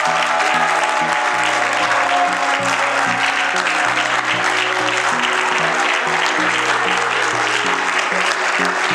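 A crowd of people applauding over music with a steady, stepping bass line.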